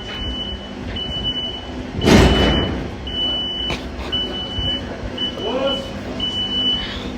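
Reversing alarm on a construction machine beeping about once a second over the machine's steady running, with a loud rushing burst about two seconds in.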